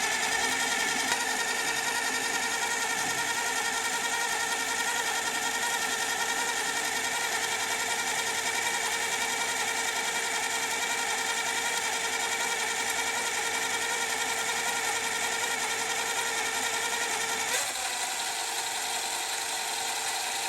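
Mini lathe running steadily while taking a one-millimetre-deep turning cut, a constant motor whine with several held tones over a hiss. The cut goes cleanly. The tone shifts slightly with a faint click about three-quarters of the way through.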